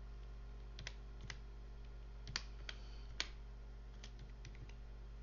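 Keys pressed one after another on a computer keyboard while a search query is typed: about ten separate clicks at an uneven pace, over a steady low hum.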